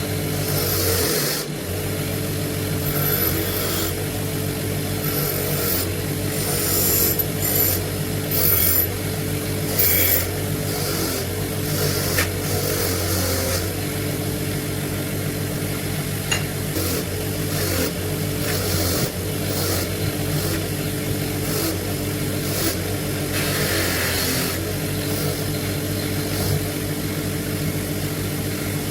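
Electric power tool motor running steadily, with irregular scraping and rasping as the tool works on metal.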